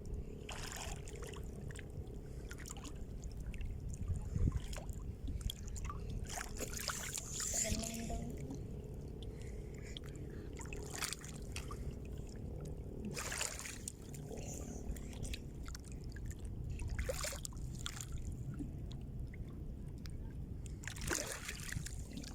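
Seawater splashing and trickling in short irregular bursts every few seconds, over a steady low rumble.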